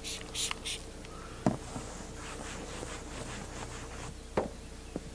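A trigger spray bottle squirting cleaner onto a fiberglass RV roof in a few quick hissy bursts, then a cloth rubbing over the roof, with two dull knocks.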